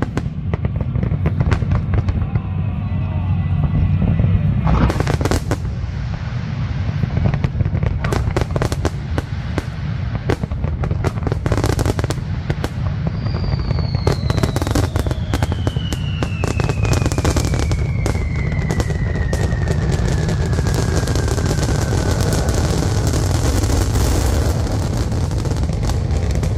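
Aerial fireworks going off: repeated sharp bangs and dense crackling over a steady low rumble. About halfway through, a long whistle falls slowly in pitch, with thicker crackling toward the end.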